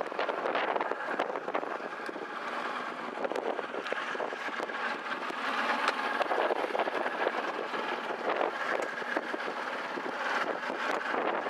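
Wind rushing across the microphone on a small boat at sea, a steady noise with many small crackles running through it.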